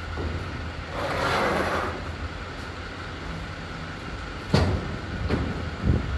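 Steady low engine hum, with a short hiss about a second in and three sharp knocks in the second half.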